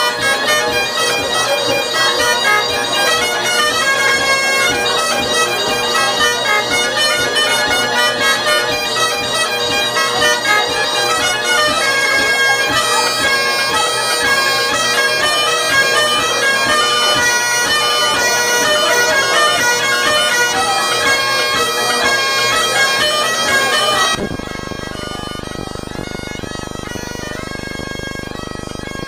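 Two Great Highland bagpipes playing a tune over their steady drones. About five seconds before the end the melody stops abruptly, leaving a quieter, steady sound.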